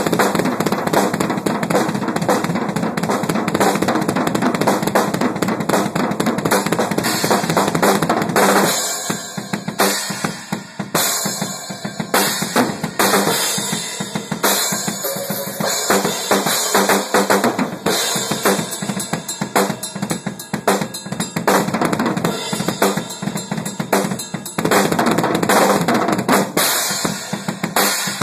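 Drum kit played solo: fast, dense strokes on snare and bass drum with rimshots and cymbals. The playing thins out about nine seconds in, then builds back to full, busy playing.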